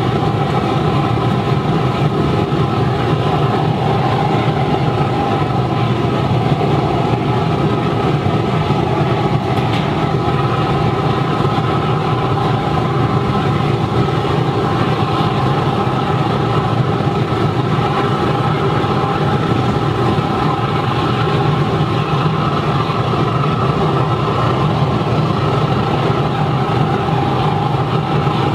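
Waste vegetable oil burner firing into a steel-drum furnace, its fuel driven by forced air from an electric blower. The flame and air make a steady rushing noise, with a constant hum under it.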